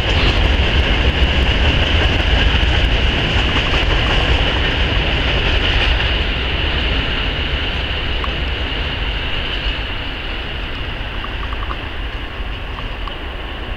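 Freight train of covered hopper wagons rolling past: a steady rumble of wheels on rails with a continuous high-pitched whine on top. It fades gradually as the train moves away.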